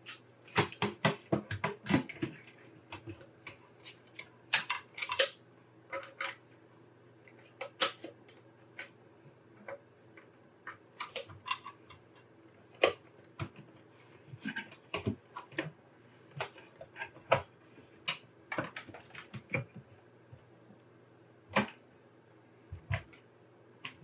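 Irregular clicks, taps and knocks of sheet-metal desktop PC parts being handled, as the metal drive cage is fitted back into the case and cables are pushed into place.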